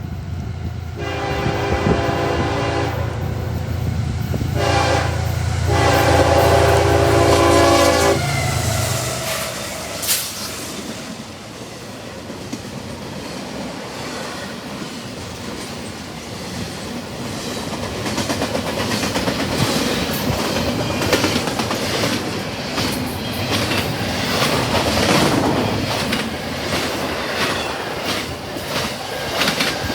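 Diesel freight locomotive's Nathan K5HL five-chime horn sounds three blasts, long, short, long, over the engine's low rumble as it passes. The train's cars then roll by with steady wheel clickety-clack on the rails, growing louder in the second half.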